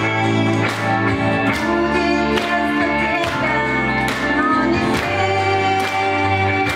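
A woman singing a song into a microphone over a backing track with a steady beat.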